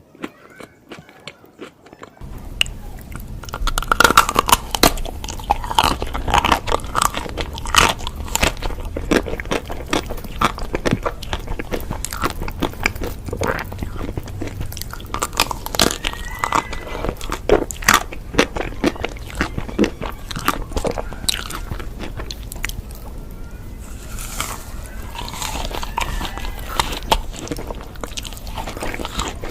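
Close-miked eating: crunchy bites and steady chewing, many crisp crackles a second, picking up about two seconds in.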